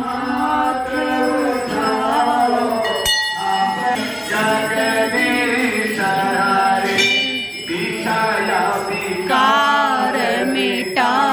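Aarti in a Hindu temple: a devotional hymn sung continuously, with temple bells ringing along.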